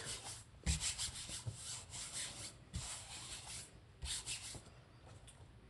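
Hands rubbing an adhesive silk-screen stencil flat onto a chalkboard to smooth out wrinkles and bubbles: a few soft swishing strokes, dying away in the last second.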